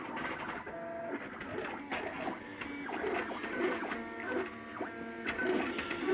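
MakerBot Thing-O-Matic 3D printer's stepper motors whining in short steady tones that jump from pitch to pitch as the print head moves, with a few light clicks, while it lays down the last layers of a print.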